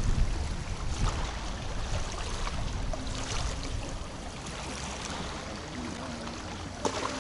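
Wind buffeting the microphone, heaviest in the first second, over small waves lapping and splashing. A single short knock near the end.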